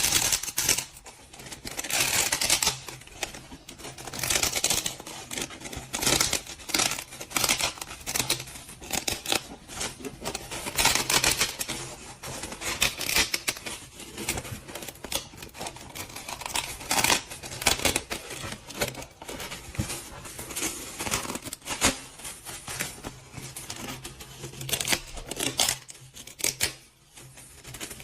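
Irregular scraping, rustling and clicking of something being handled or worked by hand, over a steady low hum.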